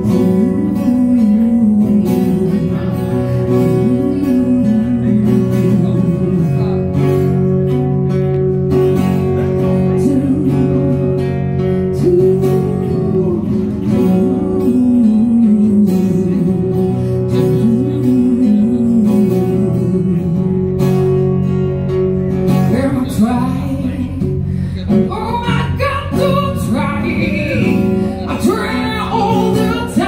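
Live acoustic guitar strumming under a woman singing into a microphone. About two-thirds of the way through, her voice climbs higher and grows stronger.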